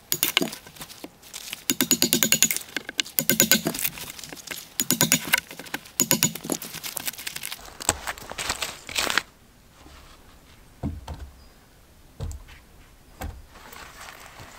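Knife blade worked into a pine log between two saw cuts to carve a notch, each stroke splitting the wood fibres in a short burst of fast cracking, every second or so. After about nine seconds the cracking stops and three soft footstep thumps follow on forest ground.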